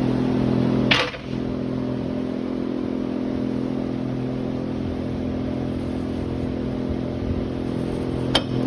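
Engine idling steadily throughout, with a sharp click or knock about a second in and another near the end.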